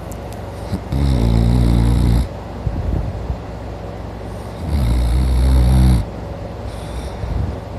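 A man asleep and snoring loudly: two long, deep snores, one about a second in and one about four and a half seconds in, each lasting just over a second, with quieter breathing between them.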